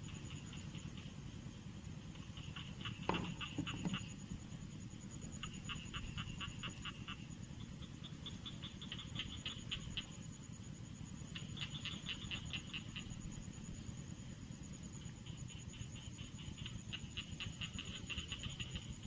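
Rice-paddy animal chorus: bouts of rapid pulsed trills about every three seconds, over a steady high-pitched insect whine and a low rumble. One knock comes about three seconds in.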